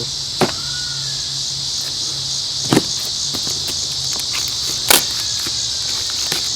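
A steady, pulsing chorus of insects chirping, with four sharp clicks and taps from handling scattered through it.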